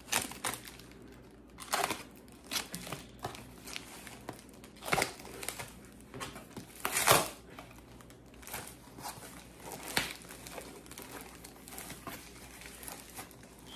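Packaging crinkling and tearing as a parcel is opened by hand. It comes in irregular rustles and crackles, the loudest about seven seconds in.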